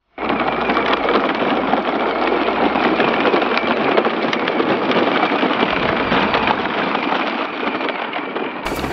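Battery-powered ride-on toy tractor rolling over gravel: its plastic wheels crunching and crackling on the stones, with a faint steady whine from its electric motor.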